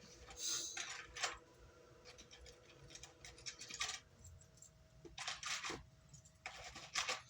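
Small hard parts being handled on a workbench: several short bursts of clicks and light rattles over a faint steady hum.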